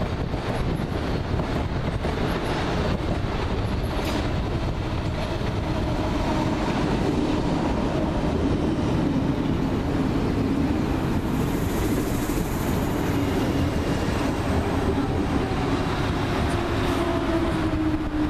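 London Underground C69 stock train running past along the platform and moving away, a steady rumble of wheels on rails. In the second half a motor whine slowly falls in pitch.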